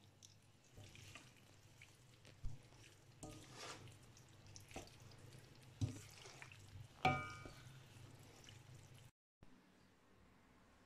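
Faint scraping and knocking of a wooden spatula against a stainless steel pan as spaghetti is tossed with shrimp and tomatoes, with wet stirring sounds; one knock about seven seconds in rings briefly off the metal. A low steady hum lies underneath, and the sounds stop near the end.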